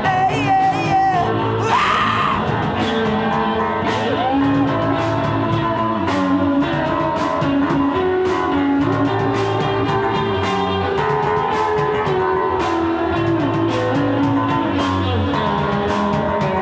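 Live rock band playing bass guitar, electric guitar and drums over a steady beat. A voice sings briefly near the start, then the band plays on without vocals.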